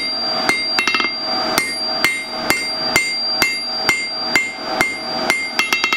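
A 3.5 lb rounding hammer strikes hot square steel bar on an anvil at about two blows a second, drawing the taper out to a point. Each blow leaves a ringing anvil tone. Twice there is a quick run of lighter taps.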